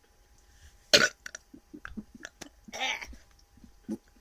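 Person belching: a short, sharp, loud burp about a second in and a longer, rougher one near three seconds in, with faint clicks between.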